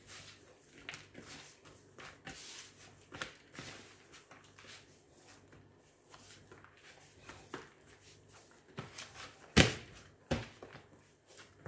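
Hands mixing and kneading rough, crumbly bread dough in a plastic basin: soft, irregular squishing and rubbing. Near the end there is a sharp knock, the loudest sound, followed by a smaller one.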